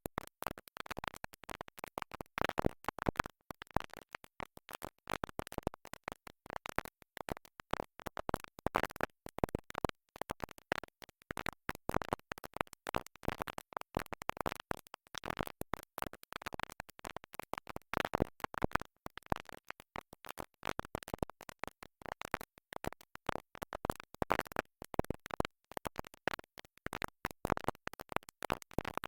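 A stuck record skipping: a tiny fragment of music repeats over and over in rapid, choppy stutters, with scratchy clicks between the repeats.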